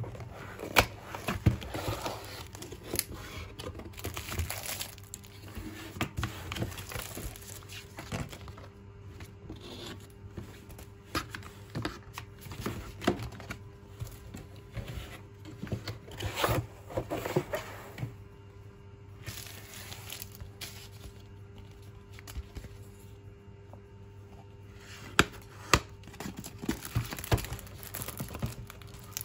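Cardboard shipping box and paper and plastic packaging handled by hand: crinkling and rustling, with scattered sharp taps and knocks of cardboard flaps and sheets on the desk.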